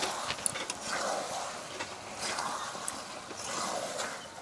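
Long metal spatula stirring a thick meat-and-potato curry in a metal kadai, scraping against the pan with scattered small clicks.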